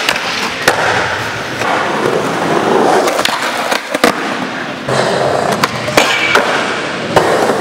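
Skateboard rolling on smooth concrete ramps: a steady rolling roar of the wheels, broken by several sharp clacks of the board's tail and trucks striking the concrete.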